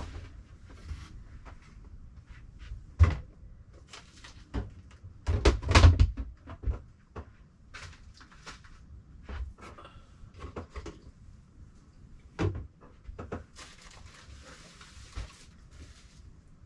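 Scattered knocks, thumps and clatter of boxes and household items being handled and moved, with the heaviest thumps about three seconds in and again around six seconds in, and a stretch of rustling near the end.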